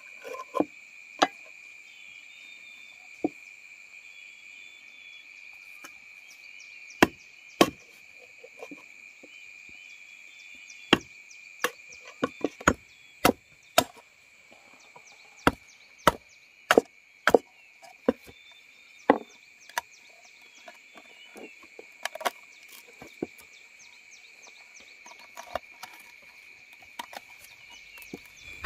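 Irregular sharp chopping strokes of a blade on wood, sometimes in quick runs, over a steady high insect drone.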